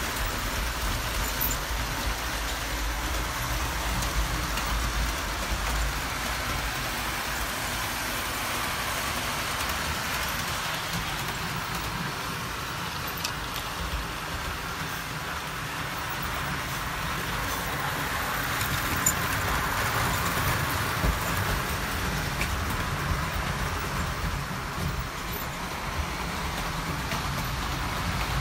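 Model trains running on the layout: a steady whirring of their motors and wheels rolling on the rails, with a few light clicks.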